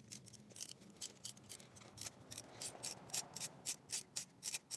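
Socket ratchet clicking in quick, even ticks, about four or five a second, as it is swung back and forth on an extension to unscrew a spark plug from a 2.0 TSI engine.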